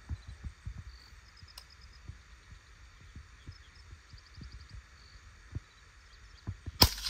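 A single sharp rifle shot from a short-barrelled rifle with a 12.5-inch barrel, fired freehand near the end, its report rolling away over open ground. Before it, while the rifle is held on aim, there are only soft low thumps and a few faint high chirps.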